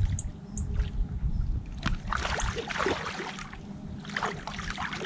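Shallow lake water sloshing and splashing around the angler's hands and a fish sling as a sturgeon is released. The splashing picks up about two seconds in.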